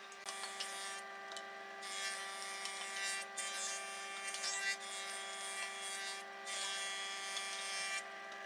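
Small electric power tool running steadily while working wood, with rasping passes lasting a second or two broken by short pauses.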